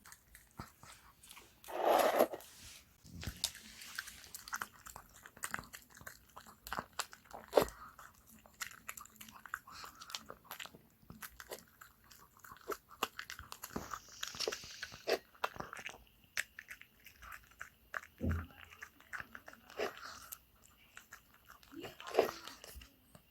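A dog chewing and eating a boiled egg: a steady run of small wet clicks and smacks of the jaws, with a louder burst about two seconds in and another near the end.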